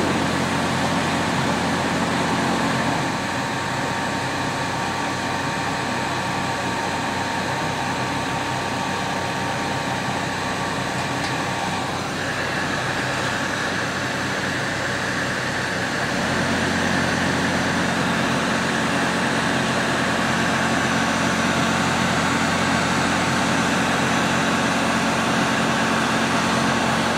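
Steady machine drone with a low hum. The hum drops away about three seconds in and comes back strongly after about sixteen seconds.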